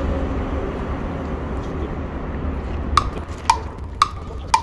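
Low wind rumble on the microphone, then, from about three seconds in, crisp ticks evenly spaced about two a second: a clock-ticking sound effect.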